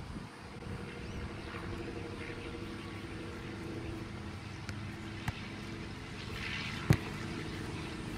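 A soccer ball struck by a foot on grass: a light tap about five seconds in and one sharp thump about seven seconds in. Under it runs a steady engine hum with a low rumble.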